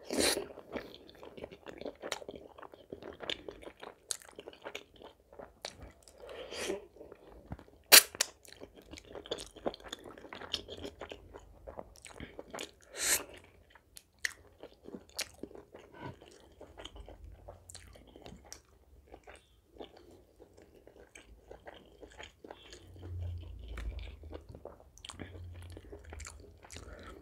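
Close-miked mouth sounds of a man eating a meal of butter chicken, butter naan and salad: chewing with many small wet clicks and crunches. Sharper crunches come about eight and thirteen seconds in.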